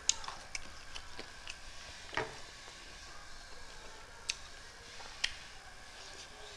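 Eating sounds: wet mouth clicks and lip smacks of someone chewing meat and rice eaten by hand, coming as scattered, irregular short clicks with a louder one about two seconds in.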